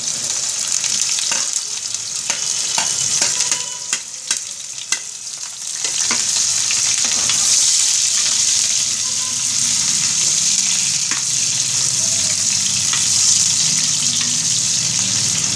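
Sliced onions sizzling as they fry in hot refined oil in a pressure cooker, with a metal ladle clicking and scraping against the pot as they are tipped in and stirred. The clicks die away about six seconds in and the sizzle becomes steadier and a little louder.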